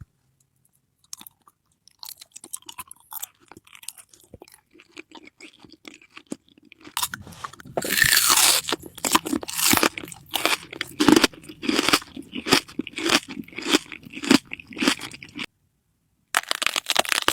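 Close-miked eating: crunching bites and chewing. Faint mouth clicks at first, then loud, rapid crunching from about seven seconds in, broken by a short gap near the end.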